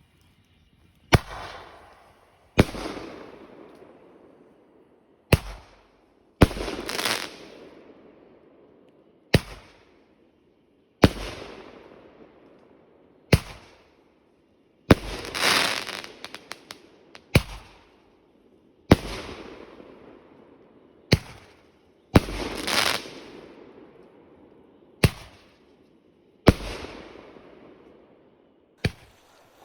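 Fireworks going off: about fifteen loud bangs one to three seconds apart, each trailing off in an echo, with a spell of crackling after one about halfway through.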